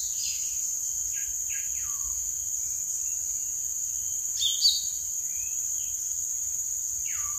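A lesser green leafbird (cucak ijo mini) calling: several short whistled notes that slide down in pitch, and a louder, sharper call about four and a half seconds in. A steady high-pitched insect drone runs underneath.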